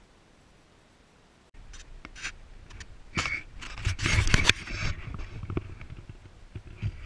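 Near silence, then from about a second and a half in, a run of irregular scrapes and sharp knocks, loudest about four seconds in.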